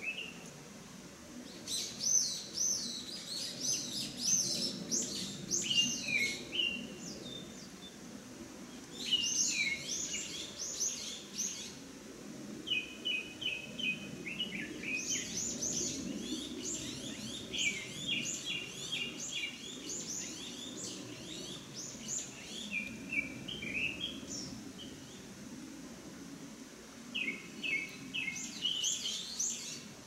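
A small songbird singing long, rapid, varied song phrases in several bouts with short pauses between them, over the steady rush of a mountain stream.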